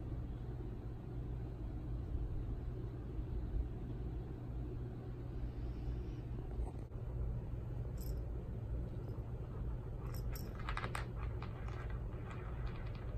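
Steady low room hum, with a run of light scratching and rustling about ten seconds in as a kitten grabs and wrestles a hollow rubber ball on a rug.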